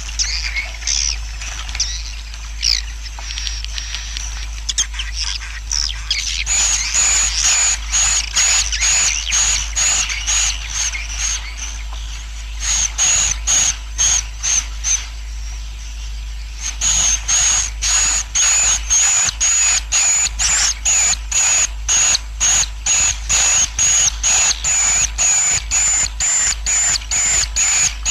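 Swiftlet colony roosting call (suara inap walet), the lure sound played to draw swiftlets into a nest house: dense high twittering of many swiftlets. About six seconds in it is joined by a fast, regular pulsing of sharp chirps, about two a second, which lapses briefly just past halfway and then resumes. A steady low hum runs underneath.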